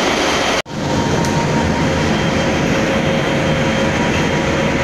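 Workshop machinery running steadily: a dense low rumble with a faint steady whine, after a brief cut-out about half a second in.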